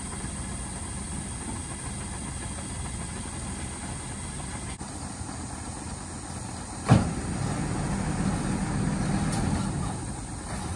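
Tilt-tray tow truck's diesel engine running steadily, with one sharp bang about seven seconds in, after which the engine runs louder.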